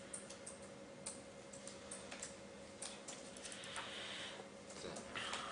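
Faint scattered clicks and taps, irregular and small, over a steady low hum in the room.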